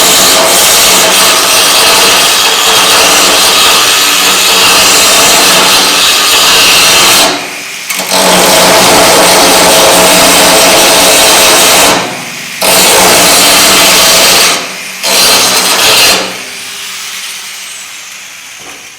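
Angle grinder grinding the steel corner of a truck bed's back rail where it pinches the floor pan, clearing room for the bedside to slide on. It runs loud and steady with three short breaks, then is released and spins down about three-quarters of the way through.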